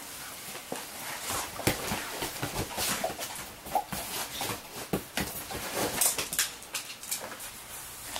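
A Staffordshire bull terrier shuffling about on a leather sofa: irregular scuffs, taps and clicks of paws and claws on the leather, with a few brief squeaks.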